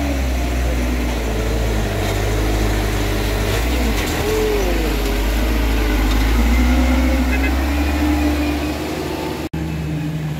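Mitsubishi Canter dump truck's diesel engine labouring under load as it climbs a rough dirt slope, a steady low rumble that grows loudest as the truck passes close, about six seconds in.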